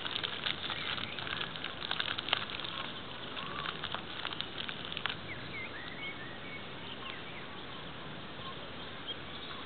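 Outdoor ambience: a steady hiss with scattered light ticks and patter, busiest in the first half, and a few short chirps of small birds around the middle.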